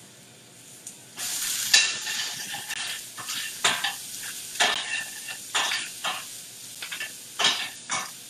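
Chopped bok choy stems going into hot oil in a skillet on high heat: sizzling starts about a second in, with repeated clinks and scrapes of a utensil stirring them in the metal pan.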